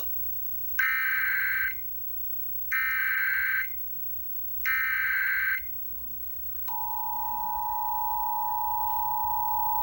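Emergency Alert System SAME header: three harsh digital data bursts, each about a second long with about a second between them, then about a second later the steady two-tone EAS attention signal starts and holds. This marks the start of a new alert.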